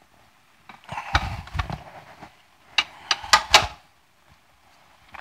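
Kitchen handling clatter: two short bursts of quick knocks and clicks, about a second in and again about three seconds in, as containers or utensils are picked up and set down.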